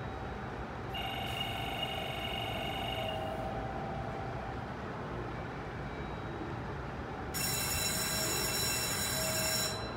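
Two electronic station chimes ring over a steady low hum: one about a second in, lasting about two seconds, and a brighter, louder one from about seven seconds in until just before the end.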